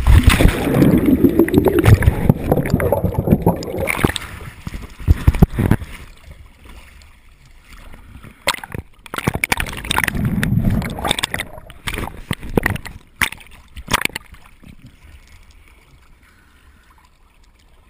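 A diver back-rolling off a boat into the sea: a sudden splash, then water rushing and gurgling around the camera for a few seconds. Further sloshing bursts follow as waves wash over it at the surface, dying down near the end.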